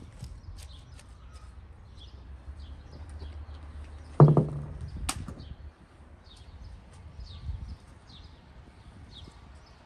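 Small birds chirping over and over. About four seconds in there is a loud, short, low-pitched sound, and a sharp click follows about a second later.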